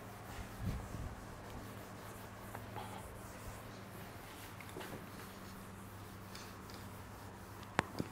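Whiteboard eraser wiping marker off a whiteboard in faint rubbing strokes over a low steady hum, with a soft thump about a second in and a sharp click near the end.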